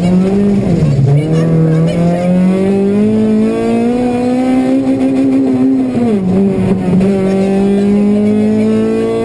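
Honda Civic Type-R rally car's four-cylinder engine heard from inside the cabin, running hard at high revs. The revs drop sharply at gear changes about a second in and about six seconds in, then climb steadily again under acceleration.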